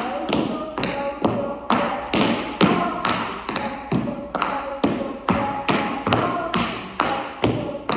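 Tap shoes striking a wooden floor as two dancers tap a step together: sharp, evenly spaced taps a little over two a second.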